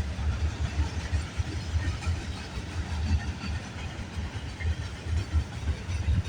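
Freight train cars rolling past, a steady low rumble with wheel and rail noise.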